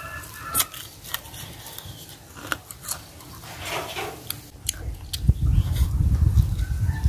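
Close-up crunching and chewing of crispy fried fish coated in tapioca starch, with many short crisp cracks as it is bitten and chewed. A loud, low rumble takes over about five seconds in.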